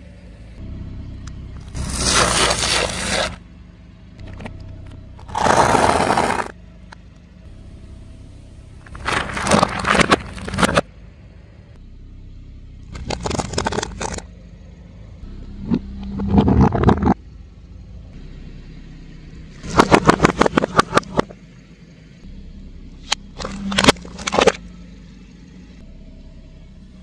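A car tyre rolling over and crushing objects on asphalt: about seven separate bursts of crunching, cracking and hissing, some made of rapid sharp snaps, with the car's low rolling sound between them.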